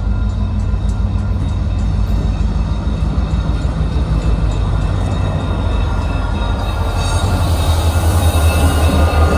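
Single Union Pacific diesel road-switcher locomotive pulling freight cars, its engine a loud steady rumble as it approaches and passes close by. Wheel and rail noise adds a rising hiss in the last couple of seconds as the locomotive draws alongside.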